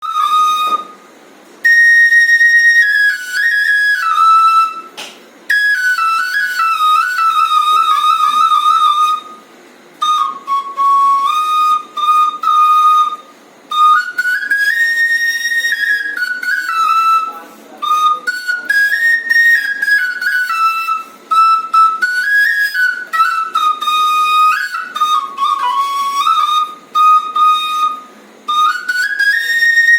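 Bansuri (Indian bamboo flute) playing a slow, sweet melody in short phrases with brief pauses between them, with quick trilled ornaments and phrases that rise and fall.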